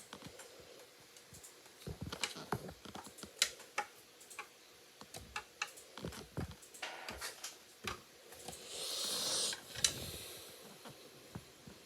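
A knife carving into a bar of soap: a run of crisp clicks and crackles as the blade cuts, with one longer scrape about nine seconds in.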